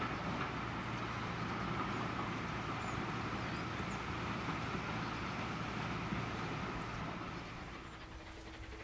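Steam train running across a bridge in the distance: a steady, continuous rumble, with a few bird chirps over it. The sound dies down near the end.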